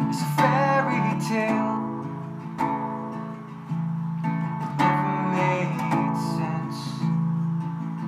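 Acoustic guitar with a capo, strummed slowly, the chords ringing out between strums.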